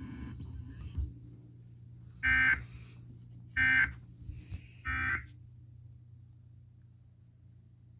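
Emergency Alert System end-of-message signal: three short bursts of screeching digital data tones, about 1.3 seconds apart, marking the end of the severe thunderstorm warning broadcast.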